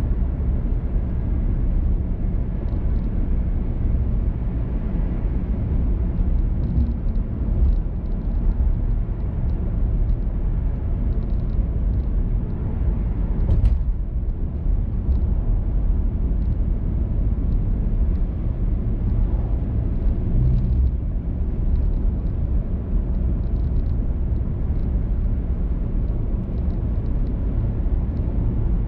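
A car driving with a steady low rumble of road and engine noise, with a few faint ticks and rattles.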